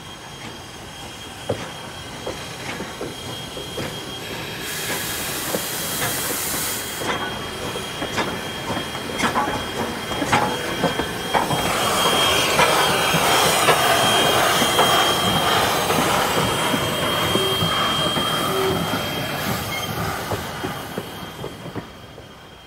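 Steam-hauled passenger train behind Strasburg Rail Road 2-6-0 Mogul No. 89 rolling past close by, its wheels clicking over rail joints. A hiss of steam lasts about two seconds, around five seconds in. Through the middle and loudest part, a steady high-pitched wheel squeal sounds as the cars pass.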